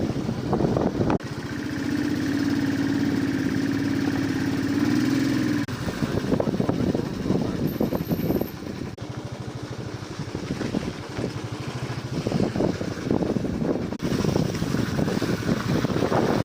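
Car driving along, with road rumble and wind buffeting the microphone. A steady droning tone sounds from about a second in until about six seconds in, then stops.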